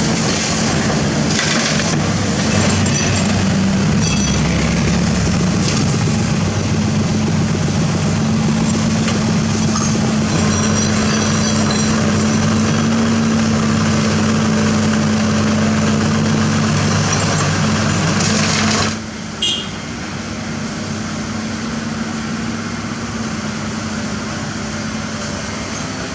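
Diesel engine of a Hitachi Zaxis 200 excavator running steadily at working revs while digging, with a few faint knocks. About nineteen seconds in the sound drops sharply to a quieter run, and there is a brief knock just after.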